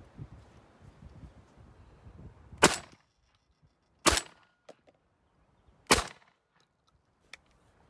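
Three shotgun shots from semi-automatic 12-bore shotguns, fired at pigeons over decoys. The first comes about two and a half seconds in and is the loudest; the next two follow roughly a second and a half and then two seconds apart. A low rumble of wind on the microphone comes before the first shot.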